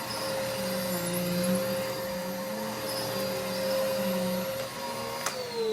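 Vacuum cleaner running steadily with a motor whine, then switched off near the end with a click, its whine falling in pitch as the motor spins down.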